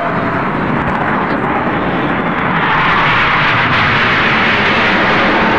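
Jet aircraft flying low overhead: a loud, rushing roar that grows louder about halfway in and holds.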